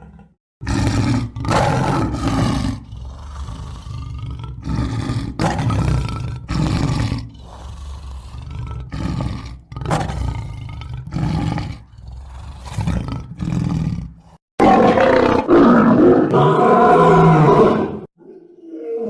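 Roaring and growling of large wild animals, played as a run of separate sound-effect clips that start and stop abruptly; a louder roar with a higher pitch comes about three quarters of the way through.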